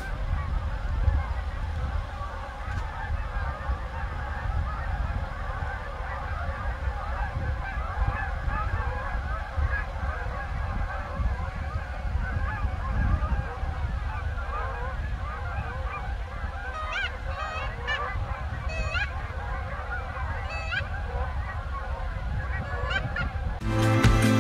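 A large flock of geese calling in flight, a dense, continuous chorus of overlapping honks, with a low rumble underneath. In the second half, a few higher calls stand out above the chorus.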